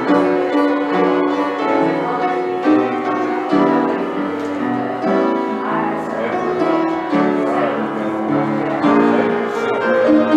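Piano playing slow music, sustained chords changing every second or so.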